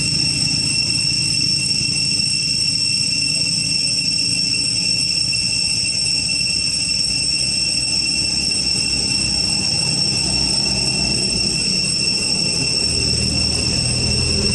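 Steady high-pitched drone of forest insects, unbroken throughout, over a continuous low rumble.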